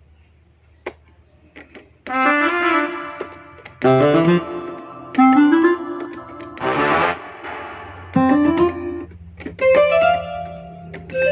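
Yamaha PSR-S900 arranger keyboard being played as a test after repair: short phrases of notes and chords in a piano-and-brass-like voice, coming about every one and a half seconds after a couple of quiet seconds with a few soft clicks at the start.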